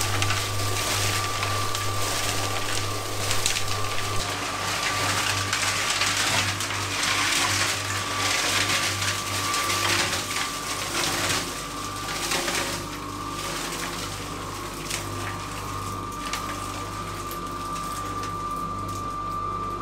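Electric cement mixer running, its drum turning and churning a ballast-and-cement mix with a steady motor hum over a continuous gritty rattle and slosh.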